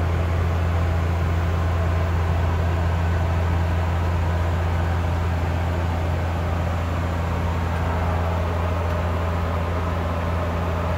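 De Havilland Dash 8 Q400 turboprop in cruise, heard from inside the cockpit: the steady low drone of its propellers with a second hum above it, over an even rush of airflow.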